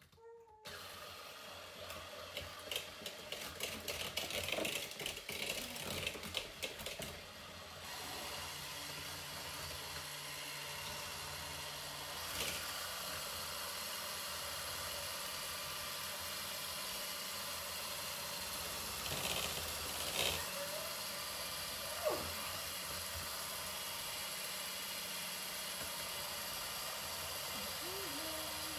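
Electric hand mixer running, its beaters whisking sugar and eggs in a plastic bowl. For the first several seconds it clatters unevenly, then settles into a steady motor hum, with a few short knocks of the beaters against the bowl.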